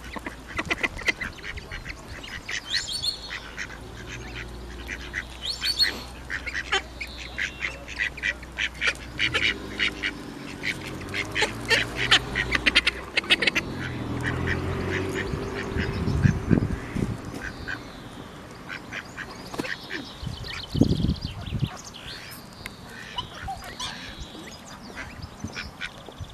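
Ducks quacking repeatedly at a pond in quick, chattering runs of calls, with two low thumps in the second half.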